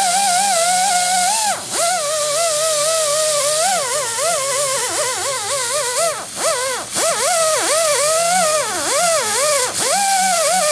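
A high-speed handheld power tool whining as it cuts the rubber lugs from a lawnmower tire. Its pitch wavers and dips sharply over and over as the tool bites into the rubber, then climbs back.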